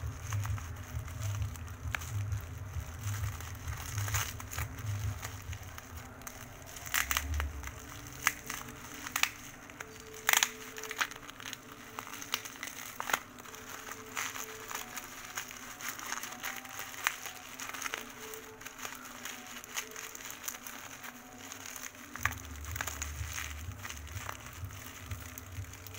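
Bubble-wrap packaging on a small parcel being handled and unwrapped: plastic crinkling and rustling, with scattered sharp cracks.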